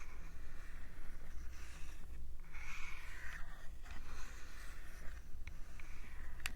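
Close-up ASMR rubbing and brushing on a microphone in several soft strokes of about a second each, with a few light clicks, over a steady low hum.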